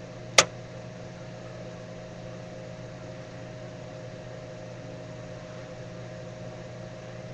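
Steady mechanical hum of a kitchen appliance's motor or fan, a low drone with a fainter higher tone above it. One sharp click comes about half a second in.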